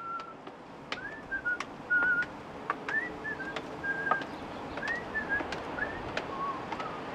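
A string of short whistled notes, several rising in pitch, at irregular intervals over a steady background hiss, with a few faint clicks between them.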